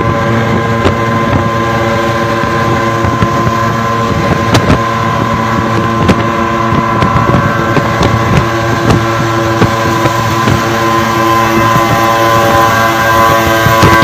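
Suzuki two-stroke pickup engine running at steady revs, heard from the open cargo bed, with wind buffeting the microphone and a few sharp knocks. It grows a little louder near the end.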